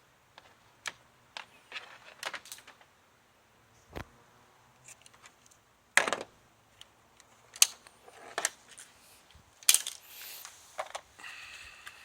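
Scattered sharp metal clicks and clanks as battery charger clamps and cables are unhooked and handled. The loudest clanks come about 6 and 10 seconds in, with a dull thud about 4 seconds in.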